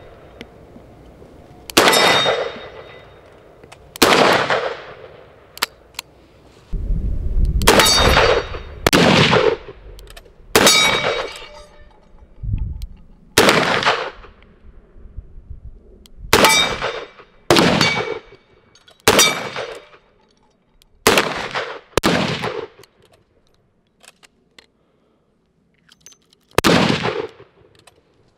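Chiappa Rhino .357 Magnum revolver fired about a dozen times at uneven intervals, some shots in quick pairs. Each shot is a sharp crack followed by a short metallic ringing tail.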